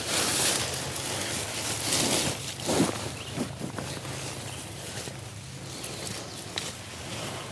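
Dry leaf litter crunching and rustling in irregular bursts as a person steps and scratches through it, mimicking a turkey feeding.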